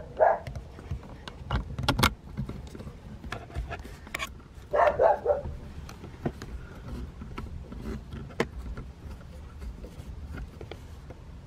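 A dog barks once near the start and in a short run of barks about five seconds in, while a GoPro's plastic thumb screw and mount give sharp clicks as they are turned and tightened by hand.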